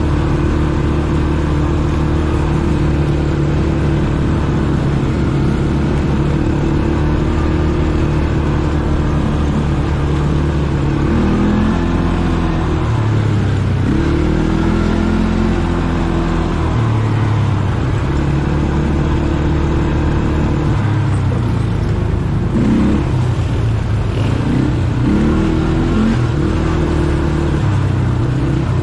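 ATV engine running steadily under way, its pitch rising and falling several times in the second half as the throttle is opened and eased off.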